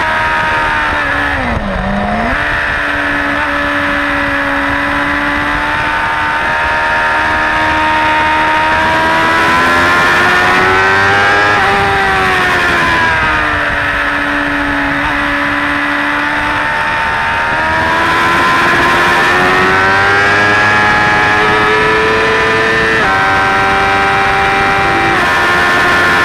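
Suzuki GSX-R600 K4 inline-four engine heard from onboard at speed, its revs rising and falling through the corners. The revs fall sharply about two seconds in and pick up again, then climb through the middle and later stretch, stepping down abruptly twice near the end as it changes up a gear. Steady wind rush runs under the engine.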